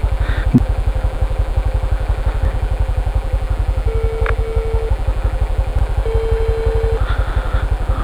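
Honda CT125's single-cylinder engine idling with a steady, even putter. A phone's ringback tone sounds twice, at about four and six seconds, as an outgoing call rings.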